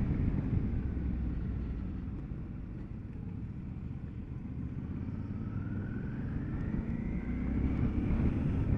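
Motorcycle engine running on the move, with rushing air. It eases off in the middle, then its pitch rises steadily over the last few seconds as the bike accelerates.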